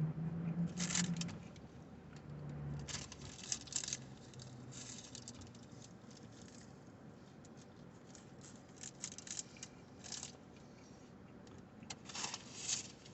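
Eating sounds: irregular short bursts of crinkling and crunching as a chalupa is handled, unwrapped and chewed, with a low hum in the first few seconds.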